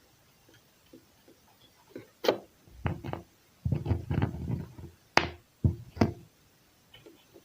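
Knocks and clicks of domestic sewing machine parts being handled and fitted back into place, with a jumble of handling noise in the middle and a few sharp clicks, the loudest about five seconds in.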